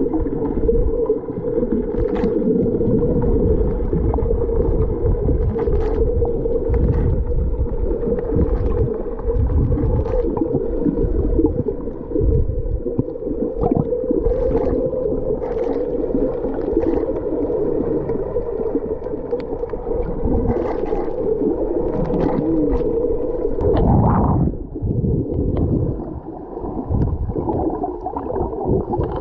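Muffled underwater ambience picked up by a camera held below the surface while snorkeling: low rumbling and gurgling water with a steady hum, and scattered sharp clicks. A louder rushing swell comes near the end.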